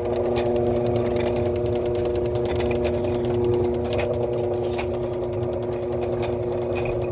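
Washing machine drain pump motor running steadily with a hum and a fast light rattle. The tub is empty, so it is pumping air, and it spins freely: the pump is working, not burned out.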